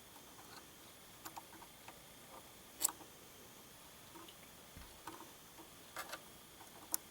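Faint, scattered small clicks and ticks of a serger needle and small tools being handled as the needle is fitted into the needle clamp, about half a dozen, the clearest a little under three seconds in.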